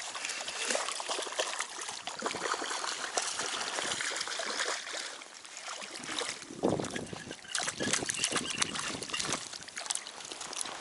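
Water splashing and trickling in irregular bursts, louder and fuller for a few seconds past the middle.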